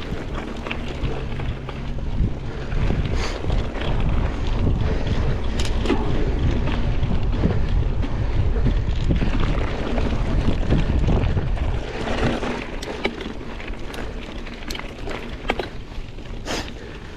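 Mountain bike riding over a gravel and dirt track, with wind buffeting the camera microphone, a low rumble from the tyres and frame, and scattered clicks and rattles from the bike. The rumble is loudest through the middle and eases off about twelve seconds in.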